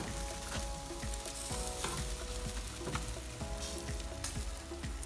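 Spatchcocked whole chicken sizzling on a charcoal barbecue's hot grate directly over the coals, with a steady crackle of small pops as the bird is turned over.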